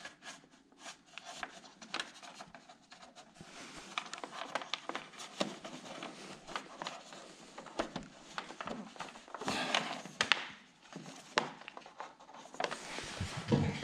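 Scattered plastic clicks, taps and rustling from AV (RCA) cables being handled and their plugs pushed into the jacks at the back of a TV. The clicks come irregularly, with busier clusters about two-thirds of the way in and near the end.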